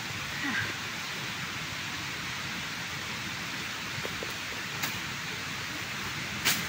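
A bolo slashing through weeds, two quick sharp cuts about five and six and a half seconds in, over a steady hiss.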